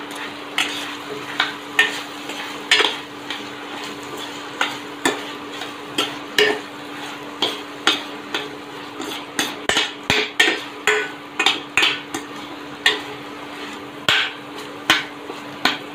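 A spatula stirring thick masala gravy in a steel kadai, scraping the bottom with repeated sharp clinks and scrapes against the metal, at about one or two a second and quicker in the middle stretch. Under it the gravy sizzles with a steady hiss as it cooks down on high flame.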